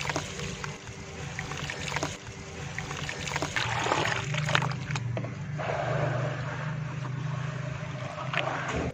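Hands sloshing and squishing crumbled red dirt in a basin of muddy water, with many small splashes, getting louder about halfway through.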